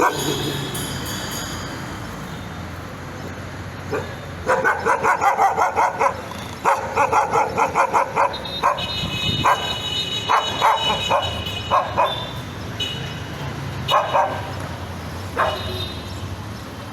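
A nervous dog barking. It gives two fast runs of short barks, about five or six a second, then single barks and higher yips spaced out.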